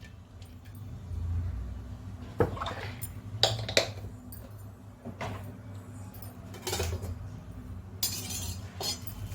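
Kitchen utensils and containers clinking and knocking now and then over a low steady hum, with a short scrape about eight seconds in.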